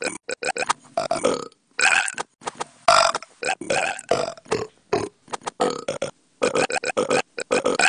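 Burping in quick succession: a rapid string of short burps mixed with several longer, drawn-out ones about half a second each, each breaking off abruptly into the next.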